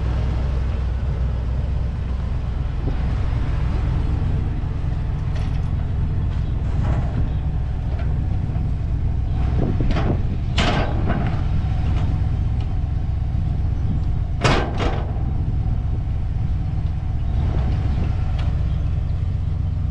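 Ford Super Duty pickup engine idling steadily. Over it come a few metal clanks about halfway through and one sharp clank a few seconds later, as the car dolly's coupler is set onto the truck's hitch.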